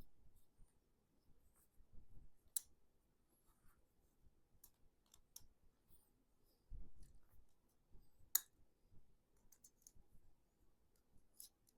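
Scattered small sharp clicks of metal folding-knife parts being handled and fitted together during reassembly. The loudest click comes about eight seconds in, with a couple of soft low bumps between them.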